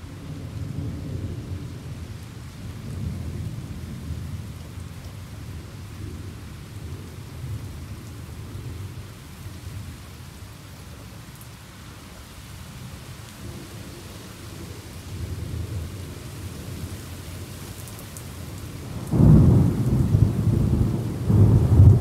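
Thunderstorm: steady rain with long low rolling rumbles of thunder, then a sudden loud thunderclap near the end that rumbles on in swells.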